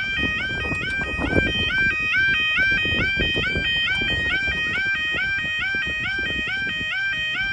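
Level crossing's new electronic yodel alarm sounding a rapid repeating two-note warble, about two cycles a second, as the barriers rise. It cuts off sharply near the end, with a low rumble of wind on the microphone beneath.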